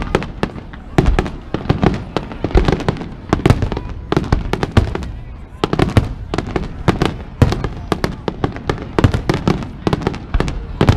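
Aerial firework shells bursting in a rapid barrage: sharp bangs, several a second, often overlapping.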